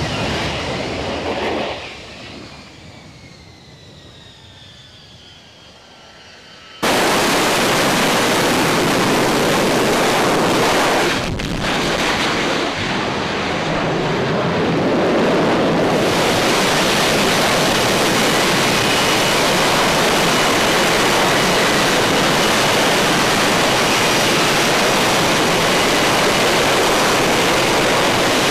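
F-35B fighter's jet engine: a whine that falls in pitch and fades over the first few seconds, then a sudden, steady loud jet roar from about seven seconds in.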